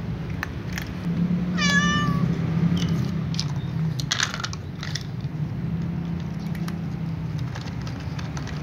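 A cat meows once, a short call falling slightly in pitch, about two seconds in, over a steady low hum. A few sharp clicks follow around the middle.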